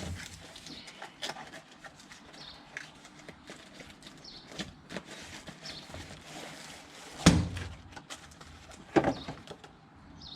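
Handling noises: faint rustles and small clicks, with a sharp knock about seven seconds in and another about nine seconds in.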